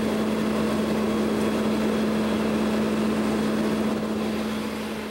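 Steady drone of a running engine with a constant hum, fading out near the end.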